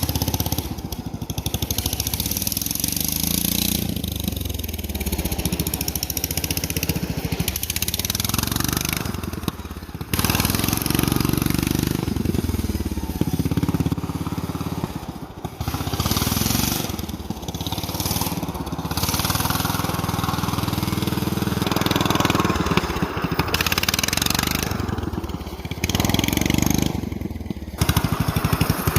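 Racing lawn tractor's engine running hard, its pitch rising and falling again and again as it revs and lets off.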